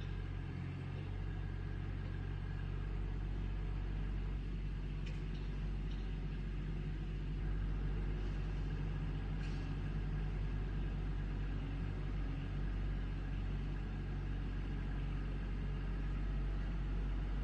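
Backhoe's diesel engine running steadily with a low drone, a little louder from about seven seconds in, with a few faint clicks.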